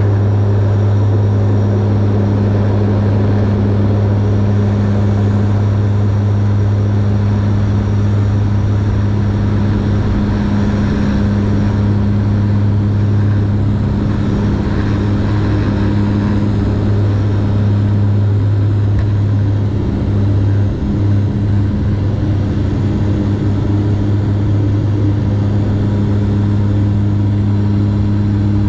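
Turboprop engines and propellers of a Dash 8 airliner at takeoff power, heard from the cabin beside the propeller: a loud, steady drone with a deep hum and a higher overtone over a rushing noise, through the takeoff roll and climb-out.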